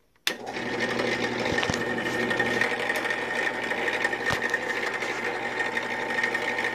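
Wen 8-inch five-speed benchtop drill press switched on with a click near the start, then its motor and belt-driven spindle running steadily. The chuck is turning under power again now that the loose screw has been tightened.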